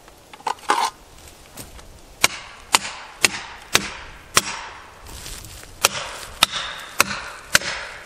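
Hatchet poll striking a plastic felling wedge in a tree's back cut. About a dozen sharp whacks, roughly two a second from about two seconds in, driving the wedge to tip the tree over.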